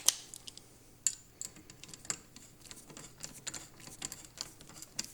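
Self-tapping screw being driven by hand with a screwdriver into a garden shredder's support frame: a run of small irregular clicks and taps.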